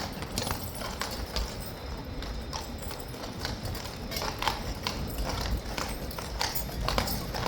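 Hooves of an unsettled, loose Household Cavalry horse clip-clopping in irregular, scattered steps as it moves about.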